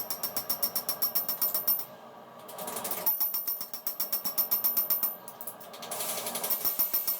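Power hammer striking hot steel in rapid, even blows, about six a second, with a high metallic ring. The blows come in runs of about two seconds, with short pauses between.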